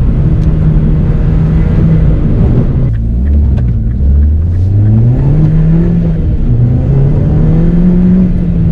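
Mini JCW GP2's turbocharged 1.6-litre four-cylinder engine, heard from inside the cabin under hard driving. It holds steady revs, drops sharply about three seconds in, then climbs back up and holds high again.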